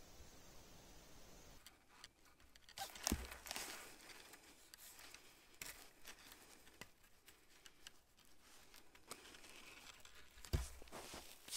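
Faint rustling and crinkling handling noise with scattered clicks, and two sharper knocks, one about three seconds in and one near the end.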